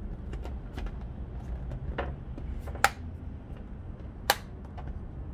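Hard plastic rugged laptop case snapping onto the base of a MacBook Air as it is pressed into place around the edges. There are two sharp snaps about a second and a half apart, with lighter clicks and handling ticks around them.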